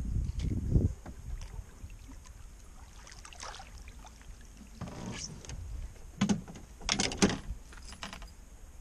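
A landed fish splashing at the water's surface beside a canoe as it is grabbed by hand, then several sharp knocks and thumps against the canoe as it is brought aboard. A low rumble at the start.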